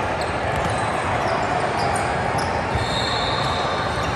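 A basketball bouncing on a hardwood gym floor during a game, over a steady din of players and spectators echoing around a large hall. A high steady squeal comes in near the end.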